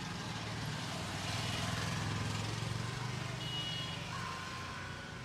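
Street traffic: a motor vehicle's engine running close by, swelling about a second in and easing off after about three seconds, over a steady traffic hum, with a brief high tone near the middle.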